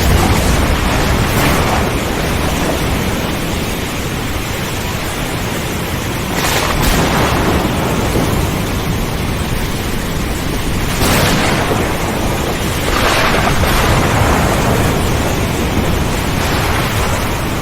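Steady heavy rain with thunder, with several short sharper cracks, the clearest about six and a half and eleven seconds in.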